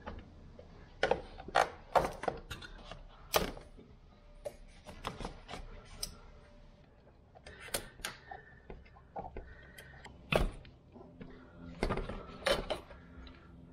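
Hand tools clicking and clinking against metal in a tight spot around an engine, with irregular sharp knocks, a few of them ringing briefly.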